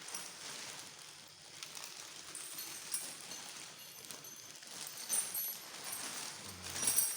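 Rustling and light clattering as brush cutter parts and packaging are handled during assembly, with scattered small knocks and a louder knock near the end.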